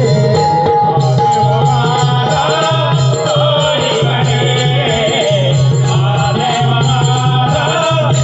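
Live Naman folk-theatre music: a singing voice carries a wavering melody over a low accompanying tone that pulses in a regular pattern, with drum and rattling percussion.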